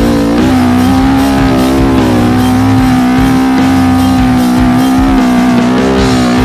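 Quad's engine, a KTM with a swapped-in 650 cc motor, pulling hard up a sand climb with two riders aboard. It is held at steady high revs and drops away at the end, not straining and kept short of the rev limiter. Rock music plays over it.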